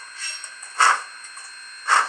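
Sound decoder of a Rivarossi H0 Union Pacific Big Boy model locomotive playing its steam driving sound through the model's onboard speaker. Slow exhaust chuffs come about once a second, two in this stretch, over a steady hiss.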